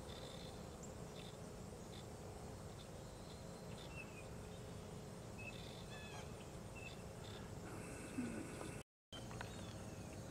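Quiet lakeside ambience: a steady low background hiss with scattered short bird chirps and faint insect calls. The sound cuts out for a moment near the end.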